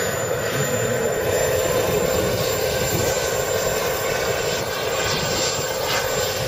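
ATJ model gas turbine engine of an RC jet running steadily: a rushing noise with a steady pitched tone through it.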